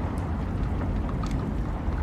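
Rain ambience: a steady deep rumble with scattered sharp drop ticks.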